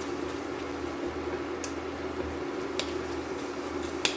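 Jaggery-and-ginger syrup cooking down in a pan on a gas burner: a steady hiss and hum, with three light clicks of a spoon against the pan.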